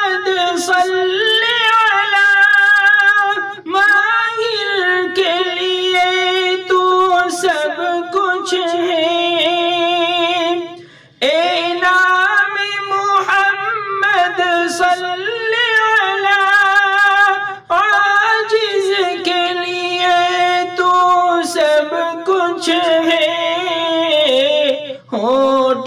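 A man's voice singing a naat unaccompanied, drawing out long melodic runs and held notes with a strong vibrato. The singing breaks off briefly for breath four times.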